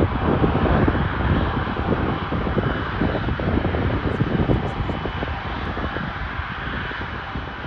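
Airbus A330's twin jet engines running as the airliner moves on the runway: a steady loud rumble with a faint whine, easing slightly toward the end.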